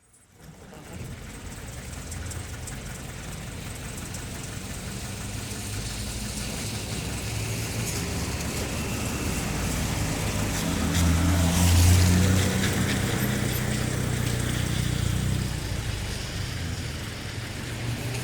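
Light town traffic on a wet road, fading in at the start: engine hum and the hiss of tyres on wet asphalt build as a vehicle passes close, loudest about two-thirds of the way through, then ease off.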